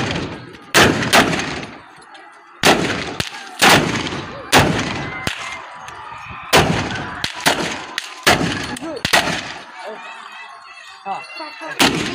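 Black-powder long guns fired one after another in a ragged volley: about ten loud shots at uneven intervals, each with a short echo. Men's shouts come in faintly near the end.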